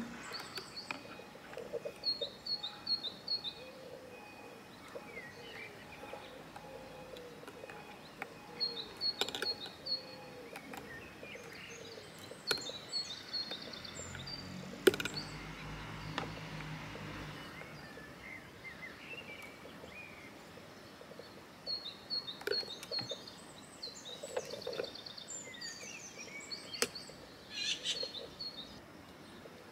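Birds chirping and calling in short bursts, with some brief sliding calls between them. A low rumble with a hiss comes and goes about halfway through, and there are a few light clicks.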